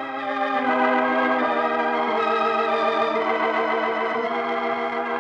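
Organ music: slow, sustained chords that swell in at the start and change a few times, with a wavering tremolo in the middle notes.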